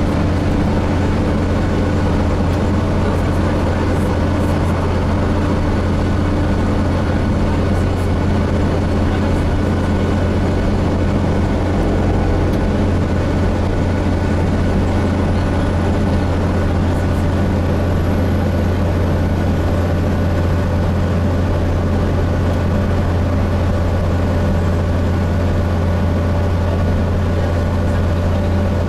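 Inside a Gillig Phantom transit bus: its diesel engine and Voith-transmission drivetrain running steadily under way, a strong low drone with road noise and no change in pace.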